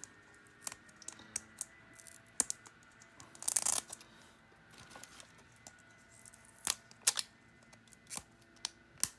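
Hands handling a small toy and its packaging: scattered light clicks and taps, with a brief rustle about three and a half seconds in.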